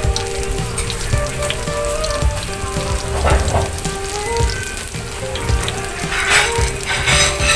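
Pieces of saba banana on bamboo skewers sizzling and crackling as they shallow-fry in oil in a pan, with louder swells of sizzle about three, six and seven seconds in. Background music with held notes plays underneath.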